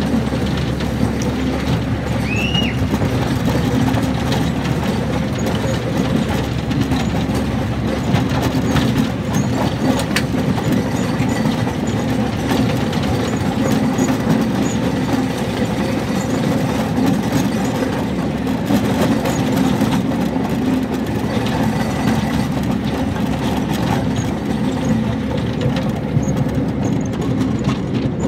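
A quarter-scale ride-on train rolling along its track, the cars and wheels making a steady running noise throughout.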